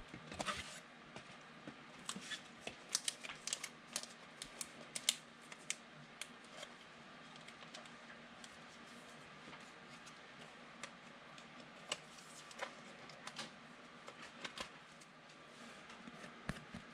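Faint, irregular clicks and soft rustles of trading cards being handled.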